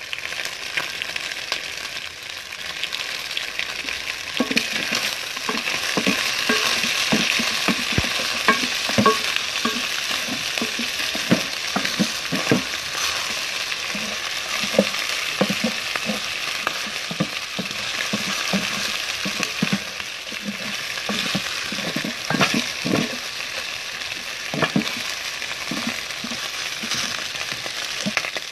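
Chicken pieces frying in a metal pot with a steady sizzle. From about four seconds in, a wooden spoon stirs them, scraping and knocking against the pot in short irregular strokes.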